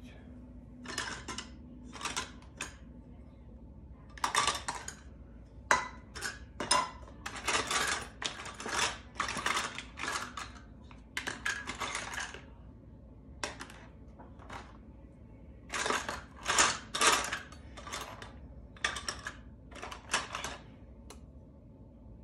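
An irregular string of short clinks and rattles from measuring spoons and seasoning containers as salt and pepper are measured out.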